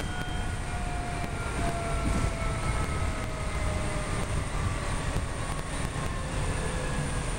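PATCO rapid-transit train heard from inside the car: steady wheel-on-rail rumble, with a whine from the traction motors that falls slowly in pitch as the train slows.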